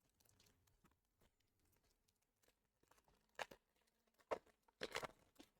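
Mostly near silence, broken by a few short crinkles and rustles of Pokémon booster-pack foil and cards being handled: a couple of brief ones about three and a half seconds in, then a longer crinkle near the end.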